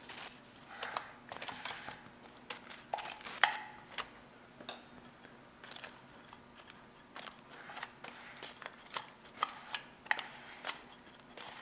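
Graham cracker crumbs being pressed and scraped into a foil-lined metal pan with a metal spoon, then with a stainless steel measuring cup: irregular soft crunches, scrapes and light clicks, the sharpest click about three and a half seconds in.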